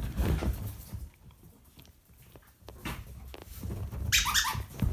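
A squeaky dog toy gives a short squeak about four seconds in, with low thumps and scuffling as the small dog plays with it.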